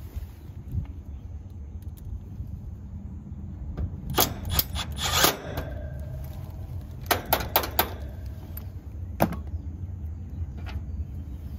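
Metal clicks, rattles and knocks as a strip of perforated band iron is handled and screwed onto the sheet-metal cabinet of an AC condenser with a cordless driver. There is a dense cluster of clicks about four seconds in, another group around seven seconds and a single knock near nine seconds.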